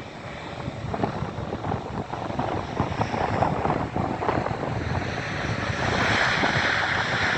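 Airbus A300-600R's General Electric CF6-80C2 turbofans running at idle as the jet taxis, mixed with heavy wind buffeting on the microphone. A steady hiss swells up about six seconds in.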